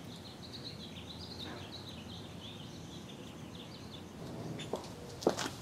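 Small birds chirping over a steady outdoor background hum. Near the end come a couple of sharp clicks, the first of a series of high-heel footsteps on concrete.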